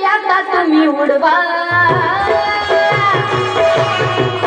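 A solo voice singing through a PA with harmonium accompaniment. Tabla strokes come in a little under halfway, keeping a quick, steady beat.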